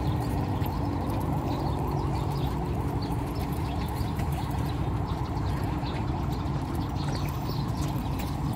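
Steady outdoor background noise: a low, even rumble with faint short chirps above it.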